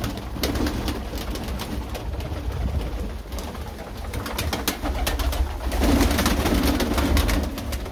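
A flock of young domestic pigeons cooing and flapping their wings while feeding on grain, with many sharp wing claps and pecks. The cooing swells at the start and again for the last two seconds.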